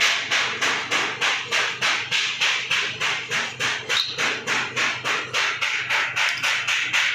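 Rapid, evenly spaced hammer blows, about five a second, in a steady unbroken rhythm.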